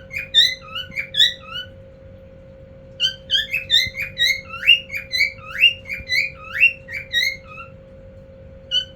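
Male cockatiel whistling its call song: quick runs of short, rising whistled notes, pausing for about a second, then starting again in a longer run and once more briefly near the end.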